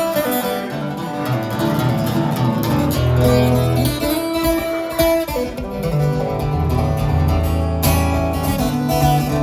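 Acoustic guitar being strummed, playing a run of chords with sustained low notes.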